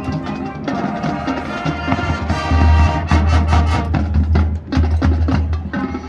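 High school marching band playing: held brass chords over drums and sharp percussion strokes, growing louder with a heavy bass about two seconds in.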